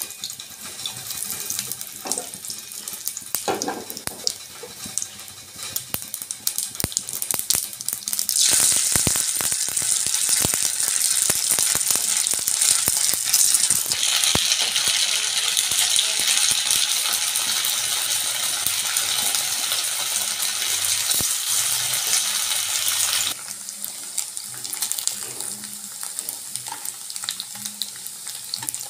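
Cumin, mustard seeds and curry leaves crackling and spluttering in hot oil in a nonstick kadhai. About eight seconds in comes a loud, steady sizzle as poha vadas shallow-fry in the oil, louder from about fourteen seconds. It drops suddenly about twenty-three seconds in to a quieter sizzle with a few clicks.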